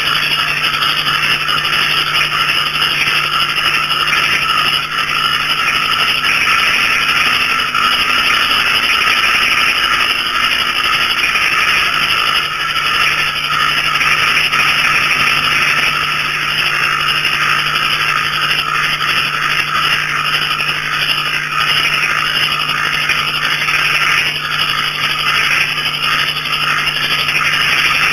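Dense chorus of small frogs and crickets calling together: a steady mass of overlapping rapid trills and chirps, with a low steady drone underneath.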